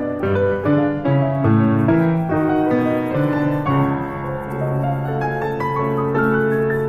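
Background piano music: a melody of separate notes, settling about halfway through onto a long-held low note with notes moving above it.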